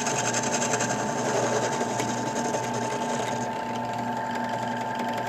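Benchtop drill press running steadily with a whine, spinning a 1/2-inch aluminium tube against a cutting tool; a fast, high chatter drops away about three and a half seconds in while the motor keeps running.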